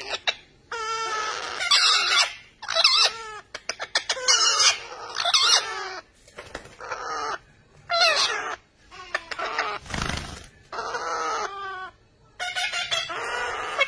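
Pet parakeets (Indian ringneck and Quaker parrots) calling close to the microphone: a run of repeated, wavering calls, each under a second long with short gaps between them. A brief noisy burst comes about ten seconds in.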